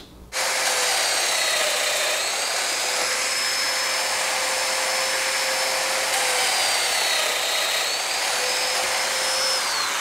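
Festool Domino DF 500 joiner running with an 8 mm cutter set to 15 mm depth, plunge-cutting mortises into plywood, with its dust extractor drawing through the hose. A steady motor whine starts suddenly and dips slightly in pitch a few times under load before recovering.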